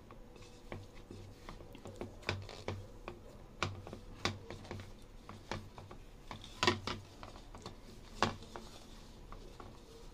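A hand kneading pumpkin dough in a bowl: irregular soft slaps, squishes and knocks of hand and dough against the bowl, with two louder knocks about two-thirds of the way in and a second and a half later.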